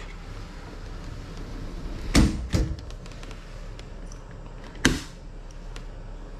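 Three sharp knocks of a sliding panel being moved and shut, two close together about two seconds in and a third near five seconds, over a steady low background hum.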